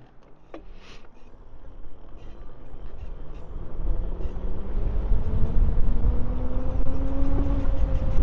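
Electric dirt bike pulling away and accelerating: its motor whine rises steadily in pitch over several seconds while a low rushing noise of wind and tyres builds up. A few light clicks sound in the first second.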